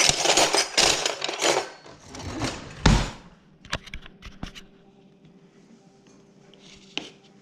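Metal cutlery rattling and clinking in a kitchen drawer as a hand rummages for a knife, followed by a single sharp knock just before three seconds in. Then a few light clicks and a faint steady hum.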